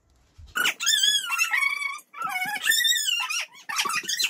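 A dog whining: three long, high-pitched whines that waver up and down in pitch, the first starting about half a second in.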